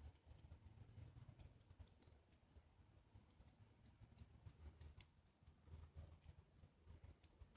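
Near silence: a faint low rumble with scattered faint ticks.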